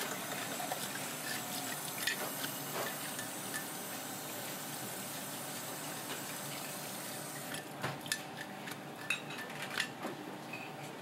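Tap water running into a stainless steel sink, with scattered clicks and scrapes of a metal fish scaler working over fish scales; the running water cuts off about seven and a half seconds in, leaving a few sharper clicks and knocks.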